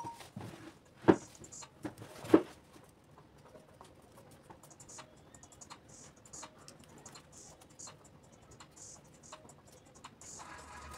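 Two sharp knocks a little over a second apart, with a weaker tap between them, followed by faint, scattered small clicks and taps.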